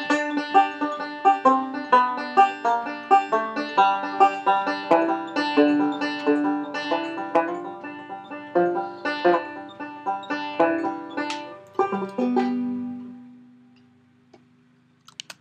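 Five-string banjo picking the song's closing instrumental: a fast run of plucked notes that slows and thins, ending on one last note about twelve seconds in that rings out and fades away.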